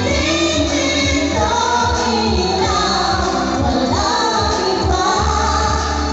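Two singers singing a song together into microphones, over amplified backing music with a steady bass line.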